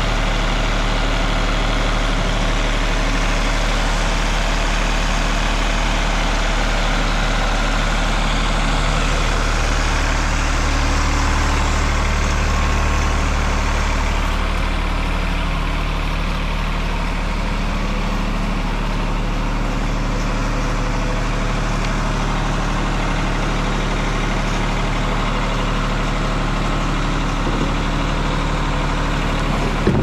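Wood-Mizer LT50 band sawmill's Yanmar diesel engine running steadily under a dense hiss. The higher part of the hiss drops away about halfway through while the engine note carries on.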